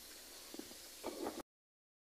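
Faint steady hiss of room tone with a couple of soft, brief handling knocks, then the sound cuts off to dead silence about one and a half seconds in.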